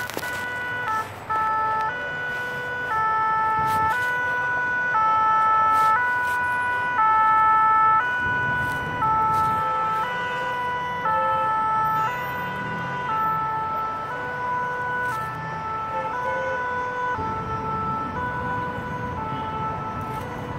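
Emergency vehicle's two-tone siren, alternating between two notes about once a second. It grows louder to a peak about a third of the way through, then slowly fades as the vehicle passes.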